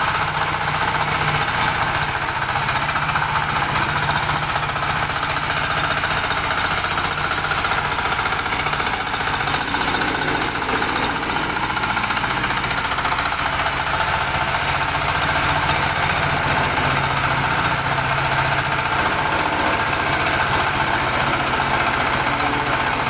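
Honda petrol engine of a single-drum baby roller compactor running steadily, a constant rapid pulsing engine note with no change in speed.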